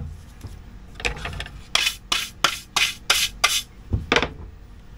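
Hand-sanding a freshly routed wooden edge with a sanding sponge: a run of about eight short strokes, roughly three a second, starting about a second in and stopping a little after four seconds.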